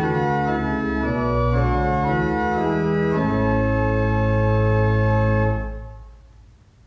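Church organ playing sustained chords that move every second or so, ending on a long, low held chord that is released about five and a half seconds in and dies away in the room's echo.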